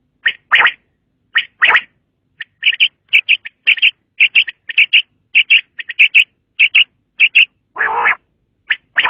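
Common quail calling: a quick series of short, sharp notes in twos and threes, with a few broader, harsher calls near the start and again near the end.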